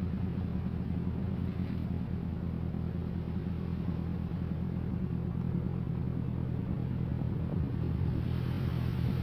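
Engine of a longline fishing boat running steadily at a low, even hum, with a faint rushing hiss rising near the end.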